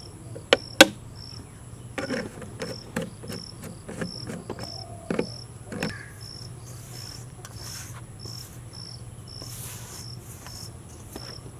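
Crickets chirping in a steady, regular pulse over a thin, constant high insect whine. Two sharp knocks come under a second in, then a few seconds of knocking and scraping as a hand works oil into flour in a steel bowl.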